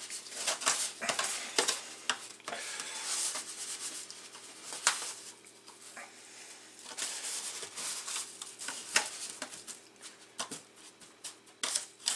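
Hands rubbing coarse salt into raw mullet roe sacs in a tray, a gritty, irregular rubbing and scraping with scattered sharp clicks. This is the dry-salting stage of making karasumi, the salt worked well into the roe.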